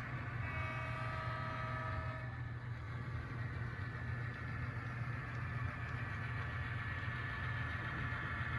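HO scale model diesel locomotive's sound decoder playing a steady diesel engine rumble, with a multi-note air horn blast that ends about two seconds in. A faint higher whine builds toward the end.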